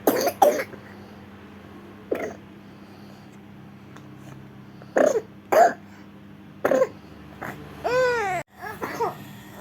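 Repeated short coughs, about six of them in the first seven seconds, then a drawn-out vocal cry near the end that rises and falls in pitch.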